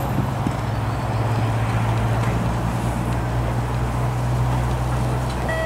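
Steady low rumble with a constant hum, like a running engine or machinery. A pure electronic beep tone starts right at the end.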